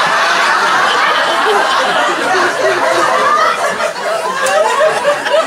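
Audience laughing and chattering, many voices at once.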